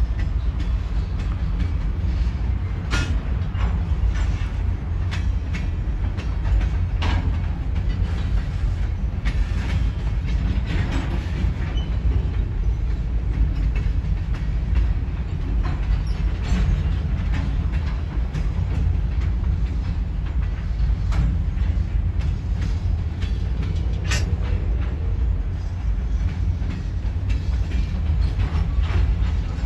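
Freight train of open-top gondola cars rolling steadily past: a continuous low rumble of steel wheels on rail, with scattered sharp clicks and clanks.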